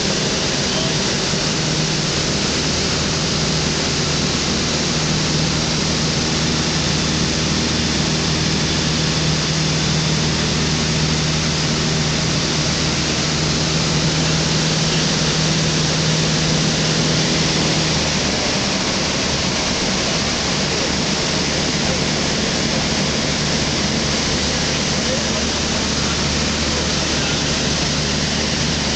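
Thruster T600N microlight's engine droning steadily in flight under a heavy rush of wind noise. About two-thirds of the way through, the engine note changes and the sound gets slightly quieter.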